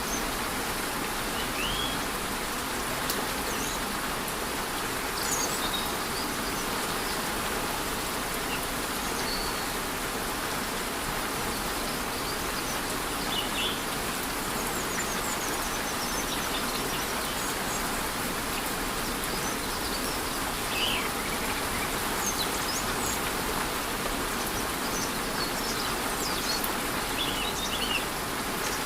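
Steady rushing of a waterfall in light rain, an even wash of water noise, with short bird chirps scattered through it.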